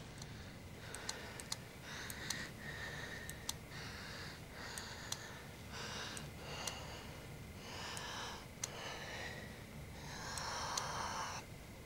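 A man's laboured, gasping breathing: about ten ragged breaths, the last and longest one near the end the loudest, struggling for air. A few sharp clicks come between the breaths.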